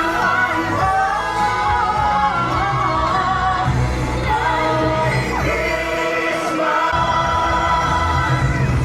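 Christmas pop song from a live stage show: several singers hold long notes over a band backing track with a steady bass line.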